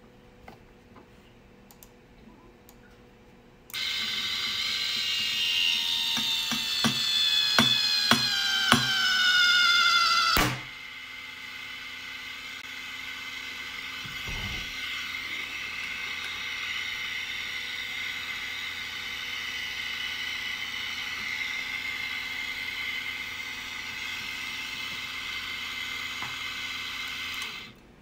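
12 V DC gear motor winding fishing line onto a wooden spool, starting about four seconds in. Its whine falls in pitch as the line takes up load, with several sharp ticks, then there is one sharp snap about ten seconds in as the line or knot breaks. The motor then runs on unloaded, quieter and steady, and stops just before the end.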